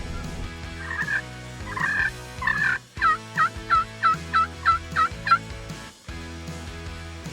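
Wild turkey calling: a few rough calls, then a run of about eight evenly spaced yelps at roughly three a second.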